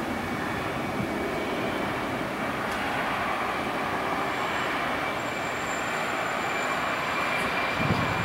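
Jet engines of a Boeing 767-300 airliner running as it rolls along the runway: a steady rushing roar with a thin whine, joined by a higher whistle about halfway through.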